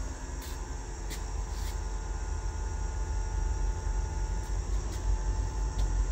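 Steady hum and low rumble of machine-shop background noise, with a faint high whine and a few faint clicks in the first two seconds.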